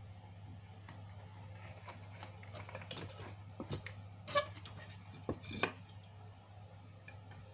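Small clicks, taps and rustles from hands working wires at a metal RCA jack terminal, with a brief ringing metal clink about four and a half seconds in and two sharper taps soon after, over a steady low hum.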